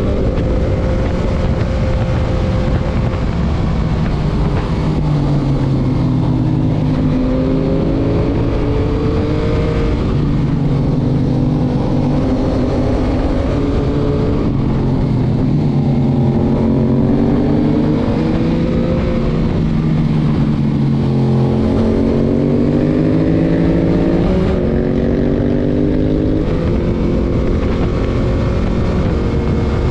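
Stock 2021 Yamaha MT-09's 890 cc three-cylinder engine, heard onboard while riding, its pitch rising and falling again and again as the rider accelerates and rolls off, with a sudden drop in pitch about 24 seconds in, over steady wind noise.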